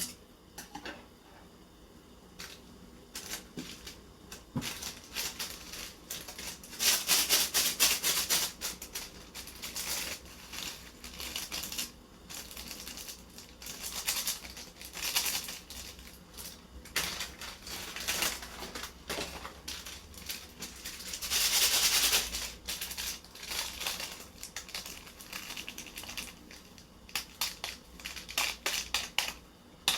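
Close-miked eating sounds from a ramyeon meal: quick clicks and smacks of chewing and utensils, with two longer, louder stretches about seven and twenty-one seconds in.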